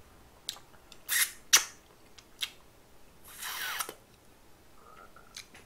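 Eating sounds: several sharp clicks of wooden chopsticks against the food and plate, then a short slurp about three and a half seconds in as a bite goes into the mouth.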